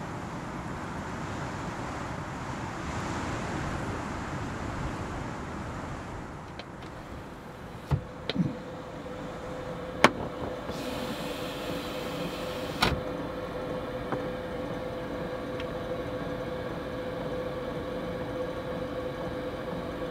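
Steady wind noise of a snowstorm around the van, with a few sharp knocks in the middle and a steady hum that sets in about eight seconds in.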